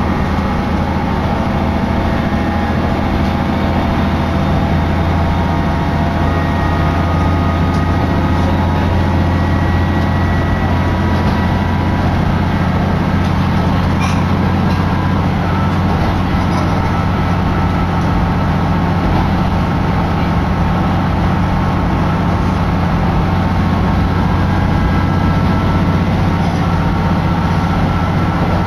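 Hitachinaka Seaside Railway Minato Line diesel railcar under way, heard from inside the passenger cabin: a steady low engine drone with running noise and faint thin whining tones above it.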